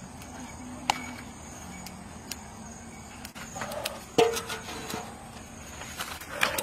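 A large metal pan being handled over a wood fire: a metal clank with a short ring about four seconds in, among scattered sharp clicks.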